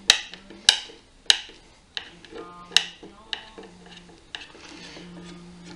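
A hand screwdriver backs a long screw out of a wooden chair seat, with sharp clicks about every half second at first and fewer, fainter ones in the second half.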